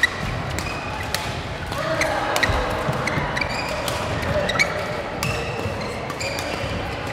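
Badminton doubles rally: rackets hitting the shuttlecock in quick exchanges, sharp cracks every half second or so, mixed with short squeaks of court shoes on the mat and hits from neighbouring courts.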